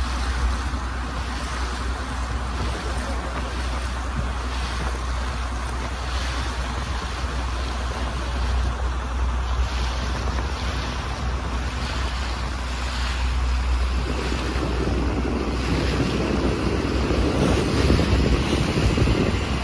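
Steady low drone of a fishing boat's engine under the rush of water and wind buffeting the microphone; the wind and water noise grows louder in the last few seconds.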